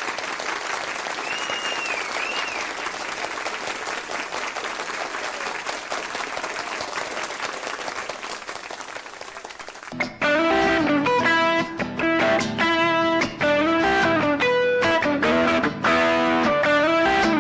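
Audience applause for about ten seconds, with a short whistle near the start, thinning out; then a guitar starts playing a melodic introduction of clear single notes.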